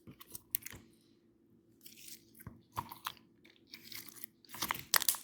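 Glossy slime being squished and stretched by hand, giving irregular sticky pops, clicks and crackles.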